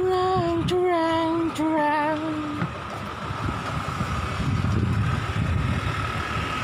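A voice sings three held notes, each slightly lower than the last and the third wavering, over about two and a half seconds. Low wind rumble on the microphone and a constant thin high whine run underneath.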